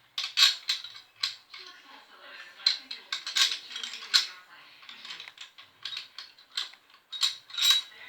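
Irregular metallic clicks and clinks of hand tools and small metal parts being handled, several a second, while a motor mount is bolted to a bicycle frame.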